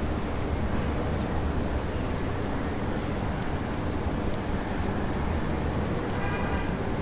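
Steady rain hiss with scattered drop ticks over a low, continuous city-traffic rumble. Near the end a faint pitched tone sounds briefly in the distance.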